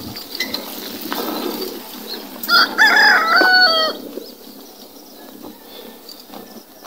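A rooster crowing once, about two and a half seconds in: a single stepped call lasting about a second and a half, over steady faint background noise.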